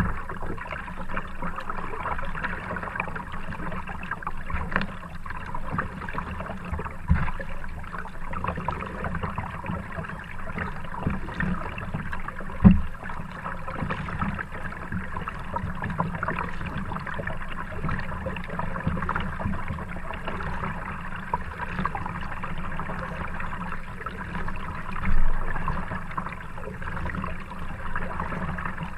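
Kayak paddling on calm water: paddle strokes splashing and dripping, with water trickling along the hull. There is a sharp knock about 13 seconds in and a louder splash or bump around 25 seconds.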